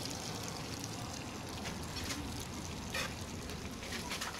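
Stir-fried chicken and vegetables sizzling on a hot iron sizzle plate: a steady hiss with a few short pops.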